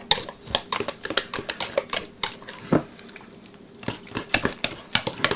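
Hands squeezing and working sticky bread dough in a stainless steel bowl: irregular wet squelches and smacks, with light taps against the bowl.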